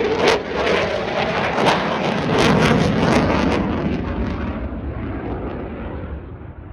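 F-16 fighter jet passing overhead: a loud jet engine roar full of rapid crackling, fading away over the last few seconds.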